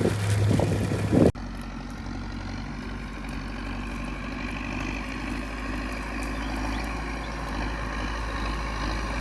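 A rough, crackling sound at first, cut off suddenly about a second in, then a machine engine running steadily at an even pitch with a low rumble.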